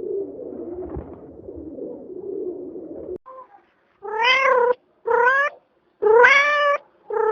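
A cat meowing: four loud, short calls in the second half, each rising and then falling slightly. Before them, a lower, rough murmuring sound stops abruptly.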